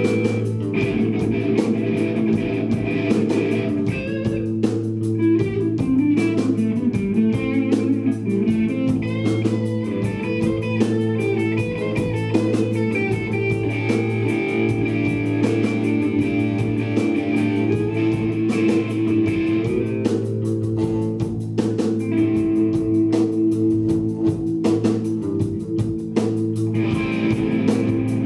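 Live blues-rock band: an electric guitar plays lead lines, with a run of quick notes a few seconds in, over a steady held bass note and drums.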